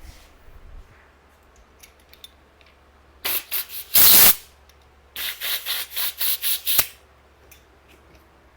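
Air hissing from a bicycle tire valve in short spurts, with one longer, louder blast about 4 s in: the tire being let down.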